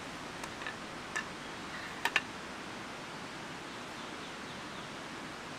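Wooden parts of a folding camp chair frame clicking and knocking together as the legs and crossbars are fitted. There are a few light clicks, then a sharper double knock about two seconds in, over a steady outdoor hiss.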